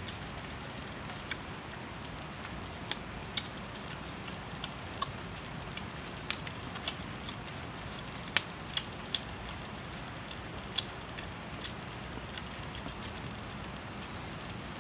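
Wood fire crackling under a cooking stone: irregular sharp pops and snaps, one louder pop a little past the middle, over a steady background hiss.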